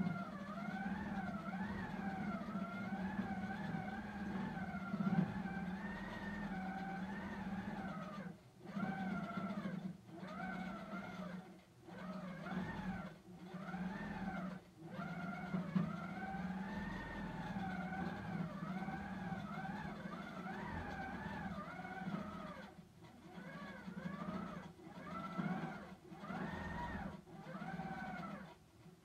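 Handi Quilter HQ Simply Sixteen quilting machine stitching a quilt on its frame: a steady motor hum with a whine that rises and falls in pitch as the stitching speed changes. It stops briefly several times in the second half.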